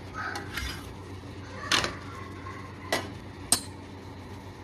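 Kitchen utensils clinking: three sharp clinks in the middle and later part, with a softer scrape near the start, over a steady low background.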